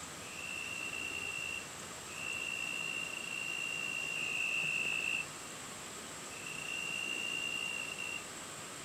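An insect trilling on one high steady pitch in three long stretches of one to three seconds each, over a constant faint high hiss.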